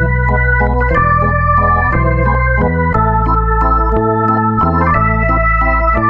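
Background music of held organ chords over a bass line, the chords changing about once a second.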